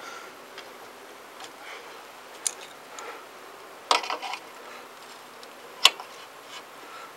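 A few sparse light clicks and taps as the footpeg's pivot pin, spring and spacer are handled. There is one click about two and a half seconds in, a small cluster around four seconds, and a sharp click near six seconds.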